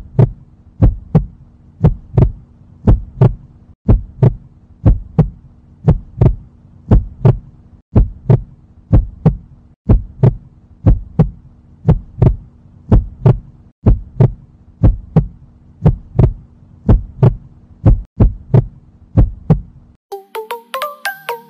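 Heartbeat sound effect: deep, even thumps about twice a second over a steady low hum, with brief breaks every few seconds. Near the end it stops and upbeat music begins.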